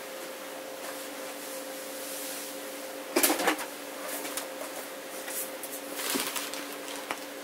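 Things being handled on a worktable: a sharp clatter about three seconds in, then a small portable radio being moved over and set down on an acrylic sign near the end, over a steady low hum.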